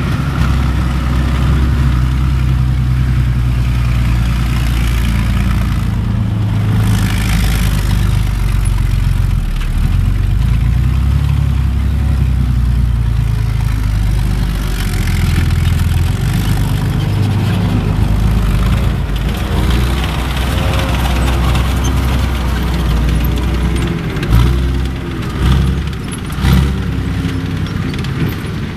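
Diesel engine of a BAT-M tracked engineering vehicle running hard as it drives. The engine note rises and falls as it revs, with a few louder thumps near the end.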